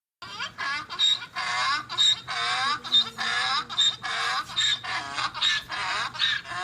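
An animal calling in a fast series of short honking calls, about two a second, each bending in pitch, over a faint steady hum.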